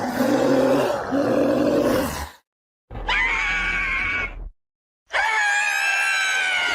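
Creature vocal sound effects played as separate clips: a low, rough growl, then two higher-pitched screeching cries, each cut off abruptly with dead silence between.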